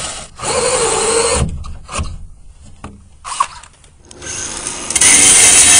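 Cordless drill driving a 3-inch hole saw through a fiberglass pool shell, cutting in stretches. Near the end a grinder runs loud against the fiberglass, smoothing it around the freshly cut hole.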